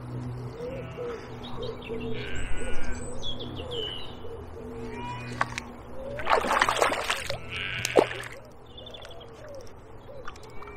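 Pigeon cooing in low, repeated notes with small birds chirping over it, against a low steady hum. A short, loud burst of rustling noise comes about six seconds in, followed by a sharp click.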